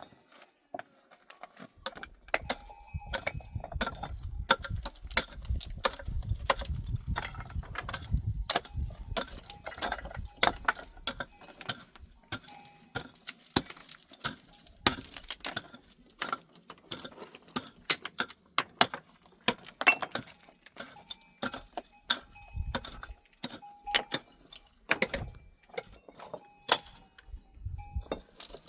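Irregular clinking and knocking, many sharp strikes with a faint metallic ringing, over a low rumble that fades out about a third of the way in.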